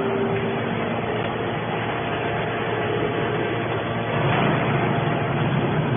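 Hydraulic scrap-metal baler running: its power pack drones steadily as the hydraulic cylinder lifts the baler's hinged lid. A steady hum drops out shortly after the start, and the drone gets a little louder about four seconds in.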